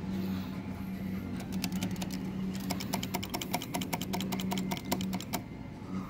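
Claw machine's motor humming steadily, joined about a second and a half in by a rapid, even run of clicks, about five a second. Both stop shortly before the end.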